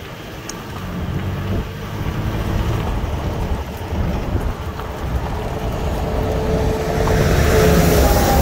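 Gusty wind buffeting the microphone with a low rumble. Near the end a semi-trailer truck passes close by, its engine hum and tyre noise swelling into a loud rush.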